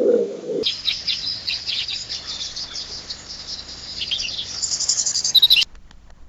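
A low cooing call ends in the first moment, then a small bird gives rapid, high-pitched chirps and twitters for about five seconds. These build into a fast trill that cuts off abruptly, leaving a brief near silence.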